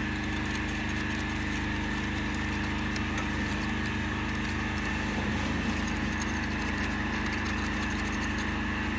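Kiam KM3700PR pressure washer's petrol engine running steadily, a constant drone, with faint metallic ticks and scrapes of a thin wire being worked into the spray gun's brass inlet fitting to clear a dirt blockage.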